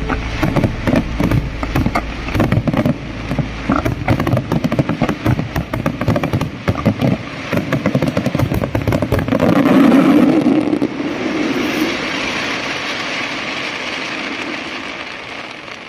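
Fireworks going off: a rapid, dense run of pops and bangs, swelling to its loudest about ten seconds in, then turning into a steady crackling hiss that fades away near the end.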